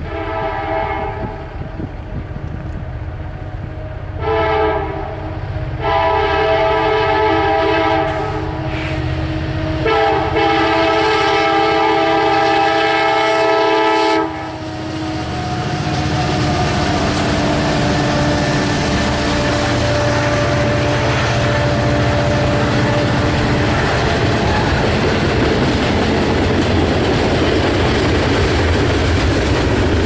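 Diesel freight locomotive's air horn sounding several chord blasts as the train approaches, the last one about four seconds long and cutting off about 14 seconds in. The train then rolls past with a steady engine rumble and wheel clatter on the rails.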